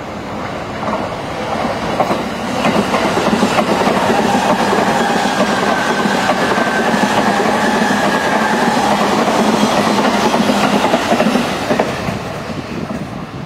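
Electric commuter train passing at speed on surface tracks: a steady rush of wheel and rail noise with some clatter. It builds a couple of seconds in, holds, and fades near the end.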